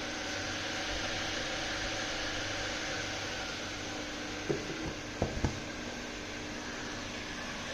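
Small electric cooling fan running steadily with a faint hum, as used on a Peltier cooler's heatsink. A few light knocks about halfway through.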